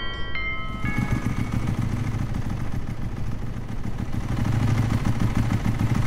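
The last notes of a chiming music cue die away in the first second, then a motorcycle engine runs steadily at low revs.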